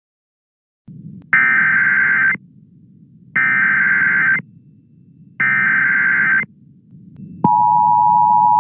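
Emergency Alert System tones for a tornado warning: three one-second bursts of SAME digital header data, about a second apart, over a low hum. Near the end the steady two-tone EAS attention signal starts.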